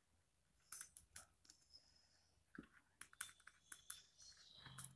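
Ballpoint pen writing on paper: faint scratchy strokes and small taps in short clusters.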